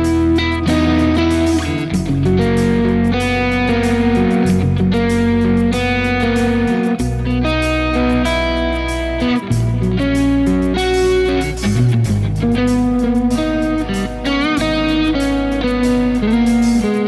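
Electric guitar with an Xotic XTC-1 overdrive tone, played through a Quad Cortex, playing a melodic lead line with vibrato on a held note near the end. Deep sustained low notes sit underneath and change every two to three seconds.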